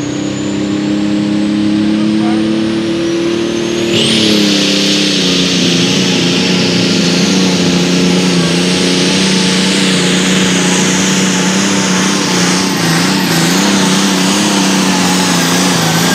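International super stock pulling tractor's turbocharged diesel held at high revs on the line with a thin whistle slowly rising. About four seconds in it launches into the pull: the sound gets louder, the engine note drops slightly under full load, and a high turbo whistle jumps up and holds steady.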